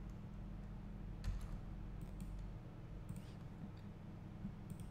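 A few scattered clicks of a computer mouse and keyboard, over a steady low hum.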